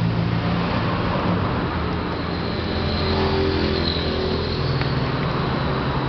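Steady low mechanical hum of a running motor, its pitch shifting slightly now and then.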